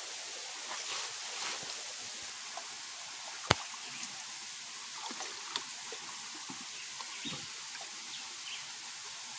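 Shallow stream trickling steadily over rocks, with scattered small splashes and knocks as hands grope through the water under a rock, and one sharp click about three and a half seconds in.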